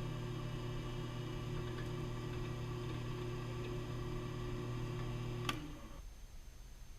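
Lathe-mill motor running steadily with a low hum, then switched off with a click about five and a half seconds in and quickly spinning down.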